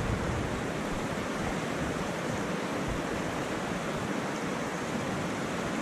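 Steady rushing of a fast river, an even, unbroken hiss of flowing water.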